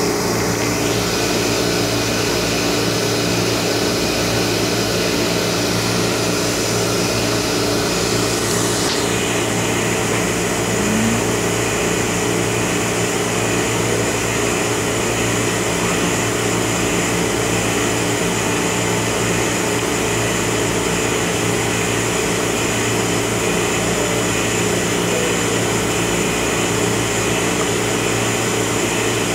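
Steady machine hum and hiss of a plasma etch system's pumps and equipment running, with a few low steady tones under it. About eight seconds in, a brief high sweep changes the character of the upper hiss.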